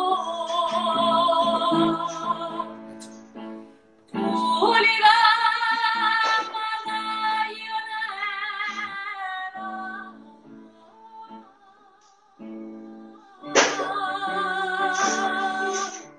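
A woman singing with strong vibrato, accompanied by piano. She sings three phrases, and the piano carries on alone for a few seconds after the second one, about ten seconds in.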